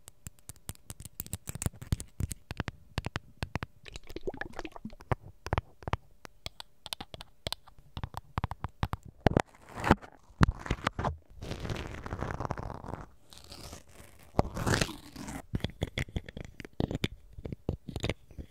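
ASMR triggers made close to a microphone: quick, irregular tapping and clicking, then longer scratching and rubbing sounds in the second half.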